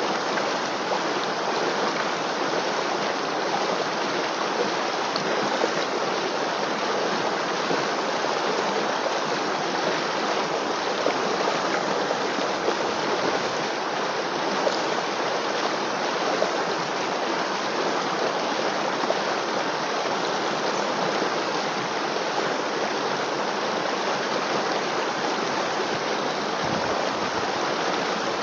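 River water flowing: a steady, even rush that holds without a break.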